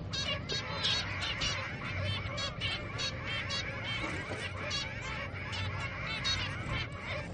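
Zebra finch chicks begging while being fed: a dense, unbroken run of short, nasal calls, several a second, overlapping one another.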